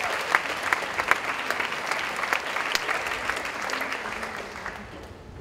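Audience applauding, the clapping fading out near the end.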